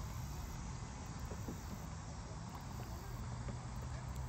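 Faint, steady outdoor background noise with a low hum and a few faint ticks.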